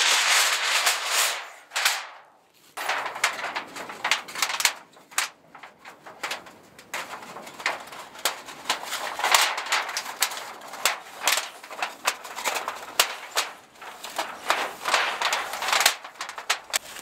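Thin titanium sheet of a roll-up tent-stove chimney flue rattling, crinkling and clicking as it is handled and rolled into a pipe, with several louder rushes of flexing metal.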